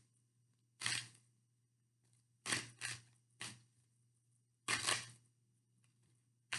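Tarot cards being shuffled by hand: several short, papery swishes of cards sliding against each other, spaced irregularly.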